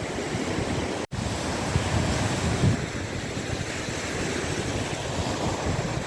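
Sea waves washing onto the shore, with wind buffeting the microphone in low gusts. The sound cuts out for an instant about a second in.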